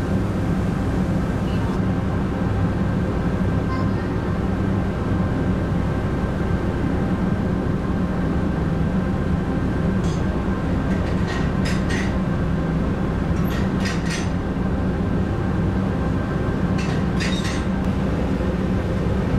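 Steady low rumble of a vehicle running, heard from inside it, with a few sharp clicks about halfway through and again near the end.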